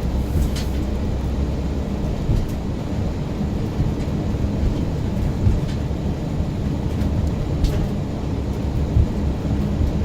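A car driving, its engine and tyres making a steady low rumble, with a few faint ticks.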